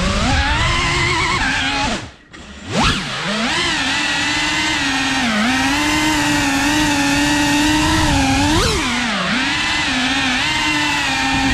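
FPV racing quadcopter's brushless motors and propellers whining, the pitch rising and falling with the throttle. About two seconds in the whine nearly cuts out, then surges back with a sharp rising pitch; later comes one more quick rise and dip.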